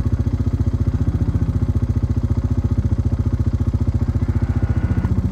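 ATV engine idling steadily close by, a quick, even pulse with no change in speed.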